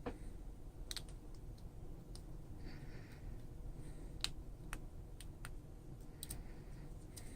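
Small screwdriver and tweezers clicking and tapping against the tiny screws and metal parts of an iPhone 5s, with about ten scattered sharp clicks, a few faint scratches and a steady low hum underneath.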